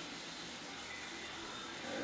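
Steady low hiss of room tone with no distinct sound standing out.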